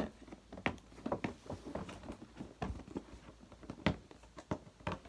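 Toy packaging being handled and opened: a string of irregular sharp clicks, taps and crinkles of plastic and cardboard, with no talking.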